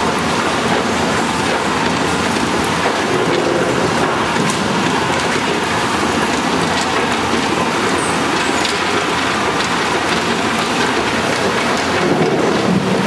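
Dubbed-in train sound effect, not the model's own sound: a train running with a steady, dense rattle and rumble of wheels and wagons on the track.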